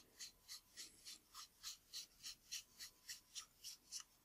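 Fingers screwing the threaded front rim onto a Nikkor 50mm f/1.8 AIs pancake lens, a faint, even rasp of the knurled metal rim with each turning stroke, about three or four a second, stopping near the end. The steady rhythm shows the rim is on the right thread and turning freely.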